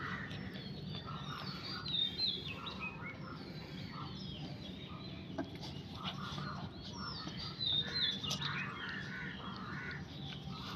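Birds chirping in the background: many short, quick chirps repeating throughout, over a faint low hum.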